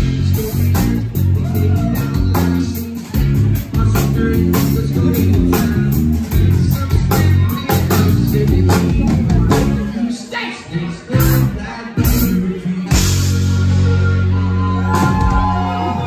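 Live rock band of electric guitar, bass guitar and drum kit playing loudly through the closing bars of a song. About three-quarters of the way through it breaks into a few spaced, accented hits, then the final chord is held and rings out.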